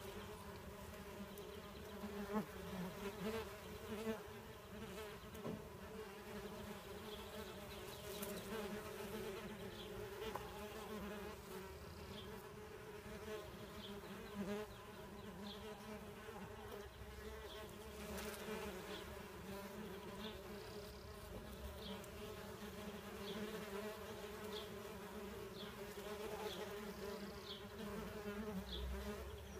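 Male horned mason bees (Osmia cornuta) buzzing in flight, a steady low hum, as they hover about the nest wall waiting for females to emerge.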